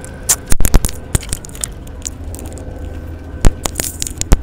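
Steady low drone of a Volvo semi-truck cab on the move, broken by a string of sharp cracks and knocks. There is a quick cluster of them about half a second in, a few scattered ones after, and more near three and a half seconds and near the end.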